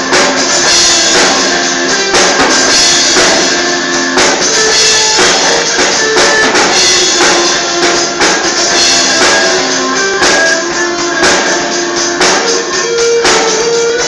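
Instrumental break of a Brazilian gospel worship song played by a band: drums with tambourine, and guitar, with sustained instrumental melody lines.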